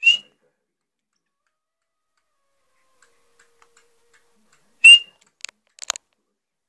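Young black francolin giving two short, sharp high call notes about five seconds apart, followed by a few quick clicks.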